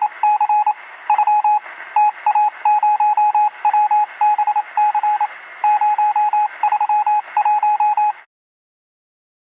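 Morse code: a single tone keyed on and off in short and long beeps over a radio-like hiss; it stops about eight seconds in.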